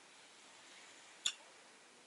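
A single sharp click from the lovebirds' cage a little over a second in, over faint background hiss.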